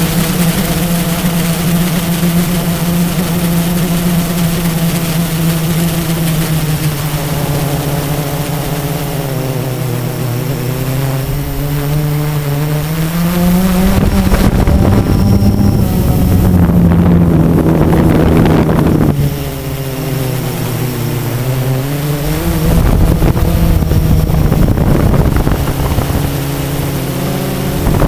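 Blade 350 QX quadcopter's electric motors and propellers humming as heard from its onboard camera, the pitch dipping and rising with throttle changes. Stretches of rushing wind noise on the microphone about halfway through and near the end are the loudest part.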